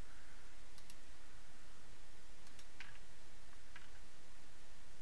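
About five short, sharp computer mouse clicks, spaced irregularly, over a steady faint hiss and low hum.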